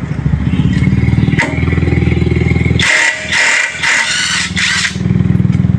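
Dagmara 800 Nm cordless impact wrench hammering rapidly on a car's driveshaft nut to loosen it. Midway it breaks into several short, higher-pitched bursts, then hammers again near the end. The nut comes off easily.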